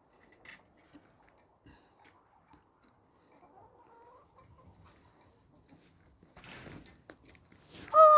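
Chickens clucking softly among faint ticks and rustles. Near the end comes a loud, drawn-out call that falls in pitch.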